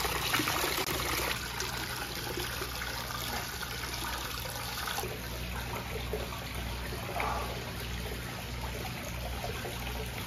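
Hot-spring water pouring steadily from a rock spout into an open-air rock bath, a continuous splashing trickle that softens slightly about halfway through.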